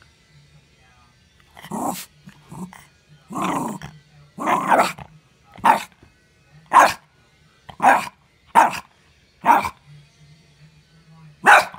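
Small black-and-tan terrier barking, about ten sharp barks at roughly one a second, starting about two seconds in.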